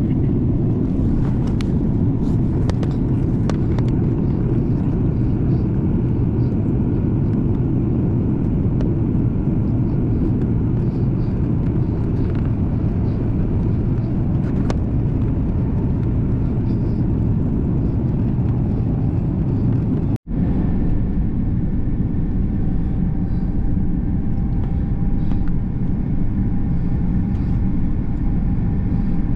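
Steady, deep roar of jet engines and airflow heard inside the cabin of an Airbus A340-600, its Rolls-Royce Trent 500 engines running in flight. About two-thirds through the sound cuts out for an instant, and afterwards a faint steady whine rides over the roar.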